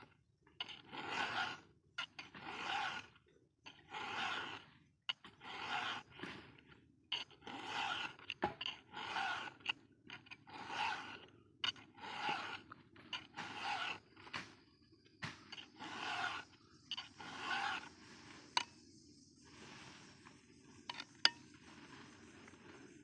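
Hand file being pushed across a chainsaw chain's cutters, about a dozen rasping strokes at an even pace of roughly one every second and a half, stopping near the end, followed by quieter handling and a single sharp click.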